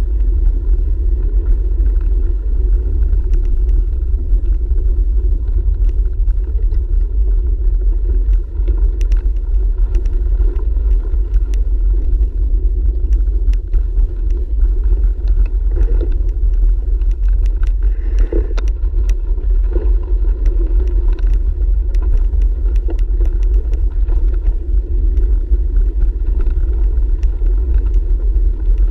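Steady low rumble of wind and ride vibration picked up by a handlebar-mounted camera as a bicycle rolls along a gravel path, with scattered light ticks and crunches from the tyres over stones.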